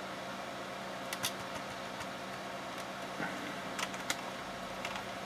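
A few separate keystrokes on a computer keyboard, a pair about a second in and another pair near the end, over the steady hum of running computers.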